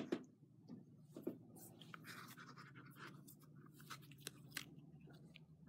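Faint rustling and scattered small ticks of hand sewing: 2-ply linen thread being drawn through kangaroo-hide lining leather and handled between the fingers, over a low steady hum.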